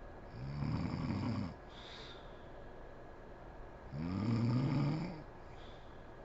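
A sleeping woman snoring: two snores about three and a half seconds apart, each a little over a second long. Each is followed by a short breathy hiss.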